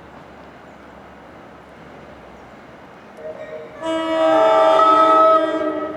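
Locomotive air horn sounding one chord of several notes. It starts softly about three seconds in, is loud for about a second and a half, then fades out.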